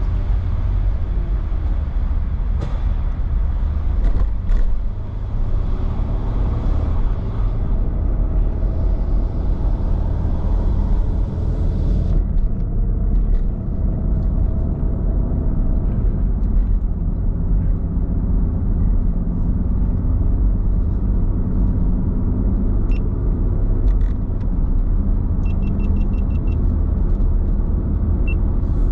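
A car running with a steady low engine and road rumble. A hiss in the upper range drops away about twelve seconds in. There are a few clicks early and a short, quick run of high ticks near the end.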